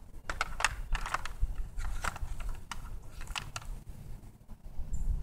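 Light clicks and rattles of electrical wires and plug connectors being handled, a string of them over the first few seconds, over a steady low rumble.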